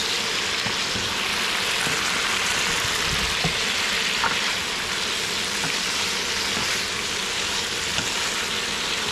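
Stir-fry for spicy mackerel sizzling steadily in hot oil in a pan, with an occasional faint click.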